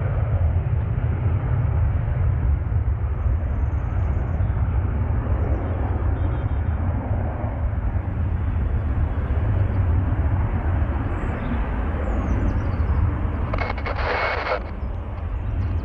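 Jet airliner engines running, a steady low rumble with a broad hiss over it, and a brief burst of hiss about fourteen seconds in.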